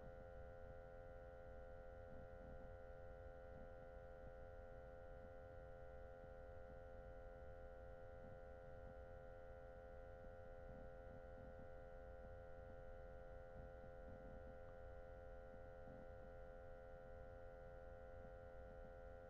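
Near silence: a faint steady electrical hum made of several held tones, the recording's background noise.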